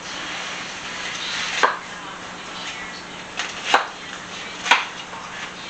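A utensil cutting into the crunchy top of a baked barbecue pie, through crispy fried onions and a cheese-topped biscuit crust: a scraping start, then several sharp crunches about a second apart.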